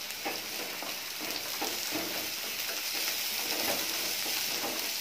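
Chopped onion and green bell pepper sizzling in hot oil in a nonstick wok while a wooden spatula stirs them, with a few light taps and scrapes of the spatula against the pan.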